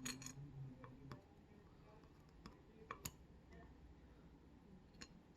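Faint, scattered metallic clicks and ticks of small lock parts being handled: the discs and spacers of a Robur disc detainer lock being picked out with tweezers. A few clicks come at the start, then single ones spread over the next few seconds, the loudest about three seconds in.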